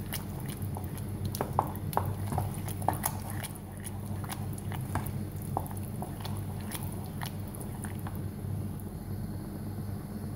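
Wooden spoon stirring thick, sticky risotto in a steel pot while butter is worked in to finish it: soft wet squelching with scattered small clicks of the spoon against the pot, over a steady low hum.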